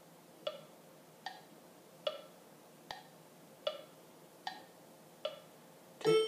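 Steady clock-like tick-tock from a wood-block-type percussion, one crisp tick about every 0.8 seconds, seven in all, played through laptop speakers. Music comes in just before the end.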